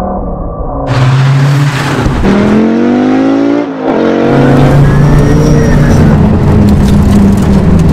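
Audi Quattro rally car's turbocharged five-cylinder engine under hard acceleration. The revs climb, drop sharply at a gear change about four seconds in, then pick up again and hold high.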